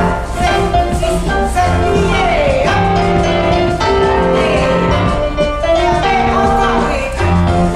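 Music with a singing voice over instruments and a steady bass line.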